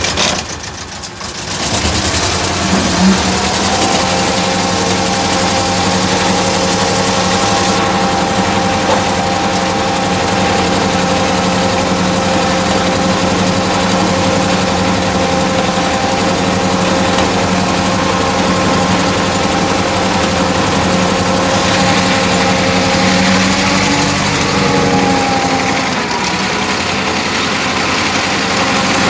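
Tractor engine running steadily at working revs while pulling a potato ridger through the field, heard from the driver's seat. The sound dips briefly in the first second or two, then settles into an even drone.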